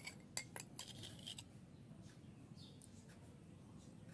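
A spoon and small bowl being handled over the pot: a few light clicks and taps in the first second and a half, then near quiet.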